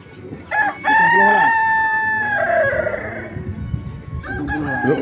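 Ayam kampung rooster crowing: a short note, then one long held note that falls away at its end.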